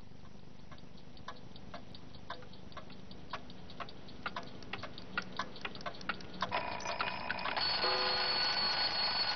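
Clock-like ticking that quickens and grows louder over several seconds, then is swamped for the last few seconds by a loud, dense ringing noise with several steady tones.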